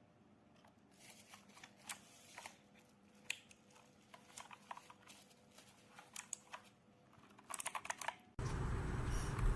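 Keys of a clicky mechanical keyboard being typed on in irregular strokes, with a quick run of clicks near the end. It then cuts suddenly to a loud rushing noise.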